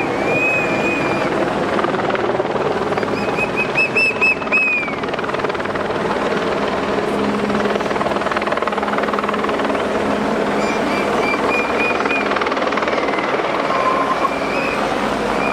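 Race helicopter running overhead together with team cars driving past, heard as a steady dense noise. Runs of short, shrill high tones sound near the start, about four seconds in, and again through the last five seconds.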